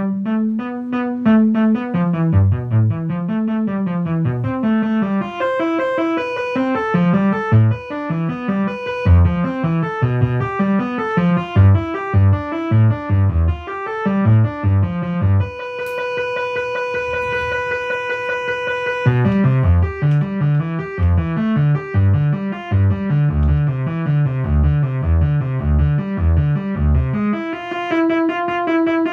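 Electronic keyboard playing chill, ambient-style music: electric-piano-like notes over a low bass line, with a single note held for about three seconds just past the middle.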